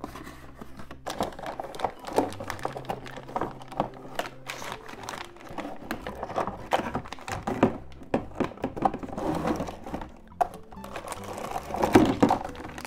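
Cardboard box flaps and hard plastic toy pieces knocking and rustling as they are pulled out of the box, with crinkling plastic bags, in irregular bursts that are loudest near the end. Background music plays throughout.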